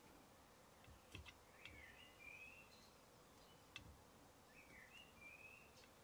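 Near silence: faint room tone with a few faint clicks, and twice a faint bird chirp.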